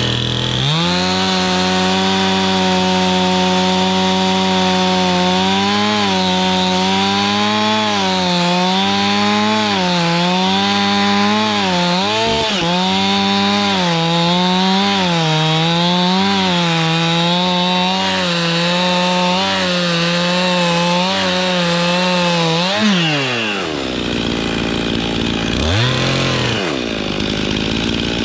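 Stihl chainsaw revving up to full throttle and cutting wood, its pitch dipping and recovering about once a second as the chain loads in the cut. Near the end it drops back to idle, with one short blip of the throttle shortly after.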